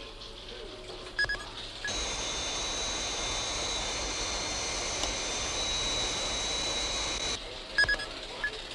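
Science-fiction spacecraft sound effect: a steady jet-like hiss with high whining tones comes in about two seconds in and stops sharply about five seconds later. Short electronic bleeps come before it and after it, the loudest near the end.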